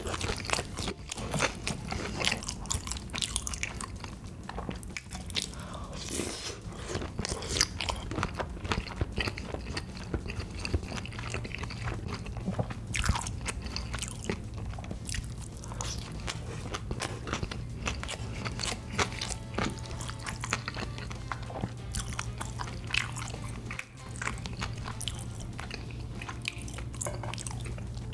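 Close-up eating sounds: chewing, lip smacks and crunchy bites of gimbap dipped in red sauce, in quick irregular clicks over a steady low hum.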